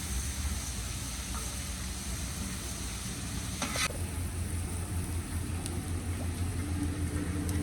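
Food sizzling in a cooking pot, with a steady low rumble underneath and one sharp scrape or knock of a utensil a little past the middle.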